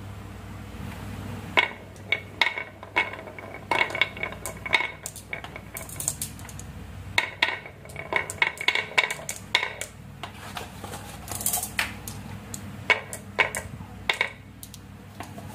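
Glass marbles dropped one after another into a wooden zigzag track, clicking and clinking against each other and the wood as they roll into the groove and pile up behind a wooden block. The clicks come in irregular clusters, starting about a second and a half in.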